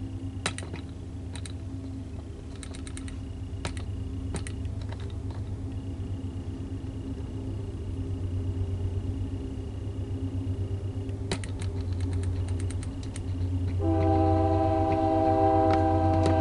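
A BNSF freight train's diesel locomotives approach with a low drone that grows louder, broken by scattered sharp clicks. About three seconds before the end, the locomotive's air horn starts sounding and is held.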